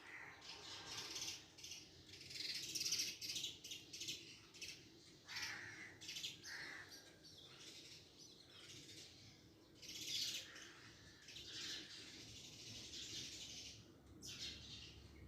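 Birds chirping, with short calls coming irregularly.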